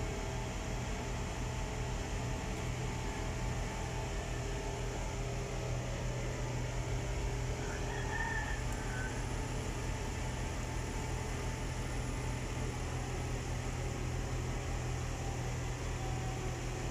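Mobile crane's diesel engine running with a steady low drone while it hoists a precast concrete bridge girder.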